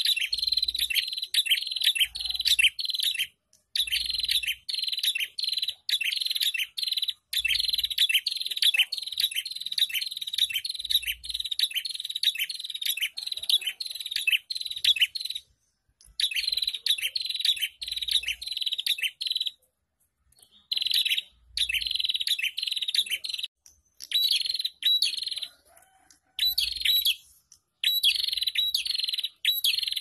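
Caged prenjak calling in fast runs of sharp, high chirps, several a second, broken by short pauses. This is the busy, non-stop 'ombyokan' calling used as a lure to set other prenjaks singing.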